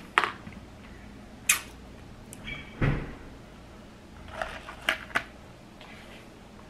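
A few separate sharp crunches and clicks from handling crisp food: hard taco shells and tortilla chips crackling. The chips rustle against a foil pan in a quick cluster about two-thirds of the way through, and there is one duller knock near the middle.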